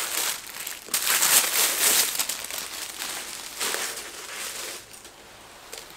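Paper wrapping rustling and crinkling as it is handled and pulled away, loudest in the first two seconds, with a shorter rustle a little before four seconds, then dying away.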